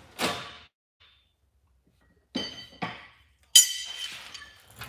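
Steel body hammers clinking against each other and other metal tools as they are picked out: four sharp metallic clinks, the loudest, about three and a half seconds in, ringing briefly.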